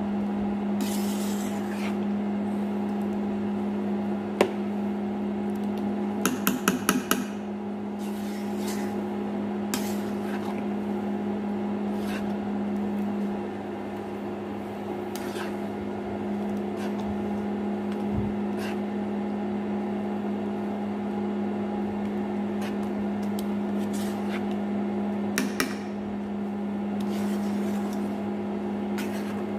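Steady electrical hum of an induction cooktop, with a metal spoon scraping and knocking against a pan as thick black sticky rice is stirred: a single knock about four seconds in, a quick run of knocks around six to seven seconds, and a couple more near the end.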